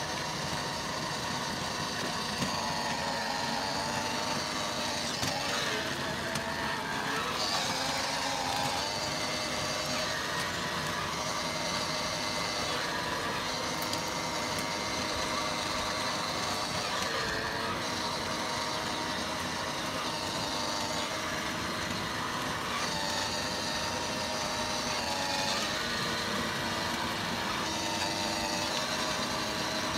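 Electric ride-on toy car (a child's Bentley replica) driving along tarmac: a steady whine from its small electric drive motors and plastic gearboxes, with its plastic wheels rolling on the asphalt. The whine's pitch wavers a few times as its speed changes.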